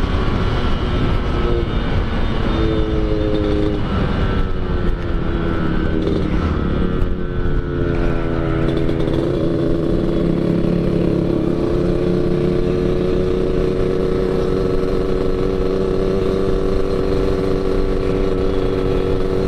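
Yamaha RX-King 2004's 135 cc two-stroke single with an under-slung expansion-chamber exhaust, tuned Medan-style for a growling 'ngorok' note, running on the road. The engine pitch steps up and down through the first eight seconds or so, then holds nearly steady, with wind and road noise underneath.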